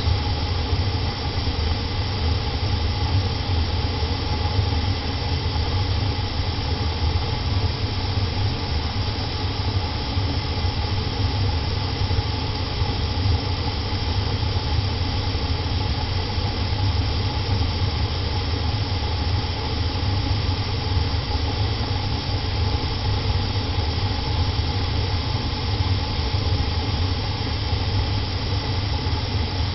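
An old furnace running on a heat cycle with all its burners lit: a steady, even rumble and hiss that does not change. This furnace rolls flames back out of its burner compartment, which the owner calls a dangerous fault.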